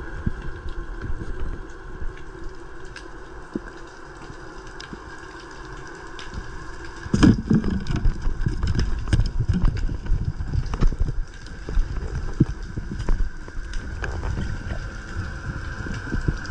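Underwater sound picked up by a camera in its waterproof housing while the diver swims: a low rushing rumble of water moving past the housing, scattered sharp clicks and a faint steady high whine. The rumble and clicks grow louder and busier about seven seconds in as the diver moves faster.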